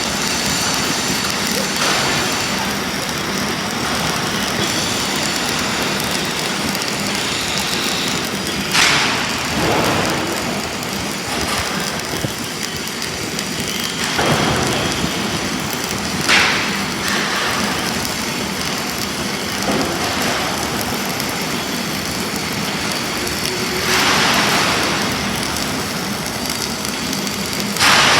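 Self-shielded flux-cored arc welding with Lincoln Innershield NR-305 5/64-inch wire: a steady arc noise, with a few brief louder surges.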